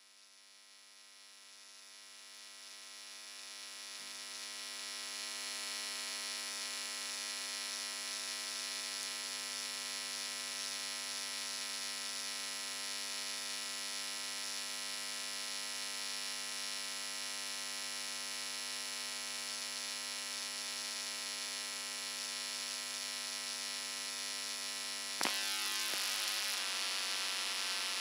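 A steady electronic drone made of many held tones over a hiss. It swells in over the first few seconds, then holds level, with a slight change near the end.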